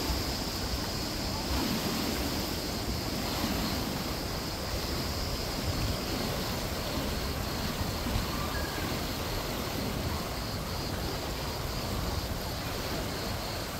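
Steady rushing of water in a water park, an even hiss and rumble with no distinct splashes or knocks.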